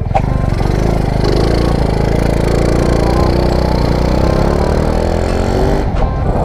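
Honda Wave 125 motorcycle's single-cylinder engine running steadily, its pitch slowly rising and then easing back down.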